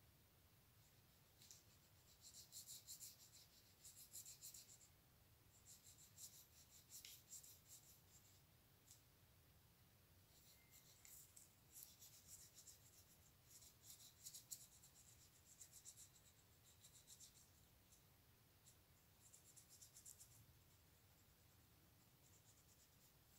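Faint scratchy scraping on a small cardboard piece, in quick strokes that come in spells of one to a few seconds with pauses between.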